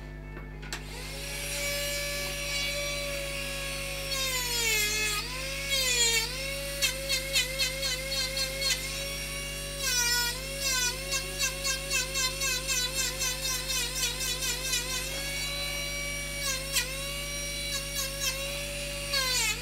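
Pen-style electric rotary carving tool starting up about a second in and running with a steady high whine. Its pitch dips each time the bit bites into the wood, in quick repeated dips, several a second, as it grinds away at the carving.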